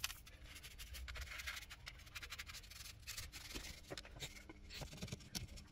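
Faint scratching and rubbing of a cloth rag and hands working over the engine's plastic covers and wiring: a string of small, irregular scrapes and clicks.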